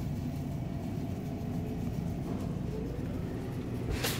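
Steady low rumble of supermarket background noise, with a single sharp click near the end.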